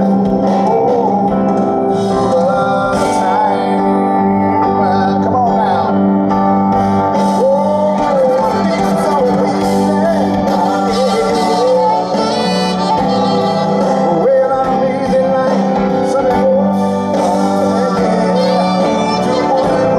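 Live band music at an outdoor concert: sustained chords under a wavering sung melody.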